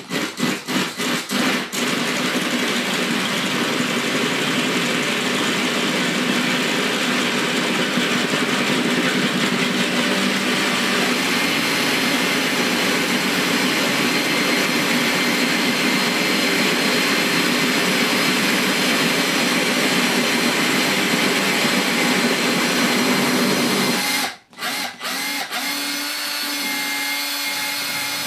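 Cordless drill with a masonry bit enlarging a hole in a glazed ceramic wall tile, run without hammer action. It starts with a quick run of short trigger pulses to stop the bit skating on the glaze, then drills steadily. Near the end it stops briefly and starts again.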